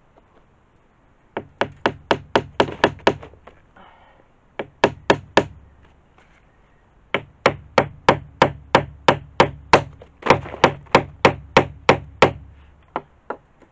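Hammer driving a nail into a wooden plank laid over pallets: three runs of quick, even blows, about five a second, short, shorter, then a long run of about twenty, followed by a couple of lighter taps near the end.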